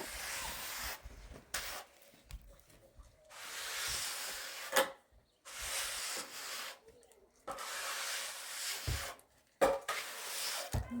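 About five long scraping strokes by hand, each a second or two with short pauses between: a tool being worked over a hard surface during stone repair work.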